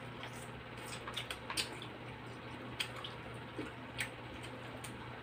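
Wet chewing sounds of people eating grilled barbecue meat by hand: scattered soft clicks and smacks, over a steady low hum.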